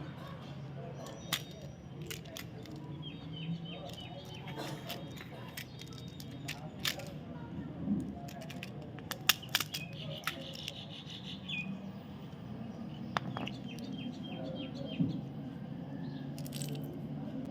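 Chocolate wrappers being handled during unboxing: scattered sharp clicks and crinkles. Three short runs of quick high chirping sound in the background.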